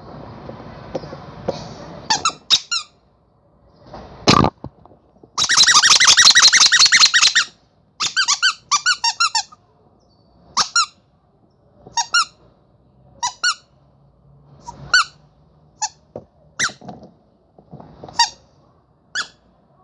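Rubber monkey squeaky toy being squeezed: short squeaks with pauses between them, and a fast run of squeaks lasting about two seconds a third of the way in. A rustle of handling at the start and a single thump just before the fast run.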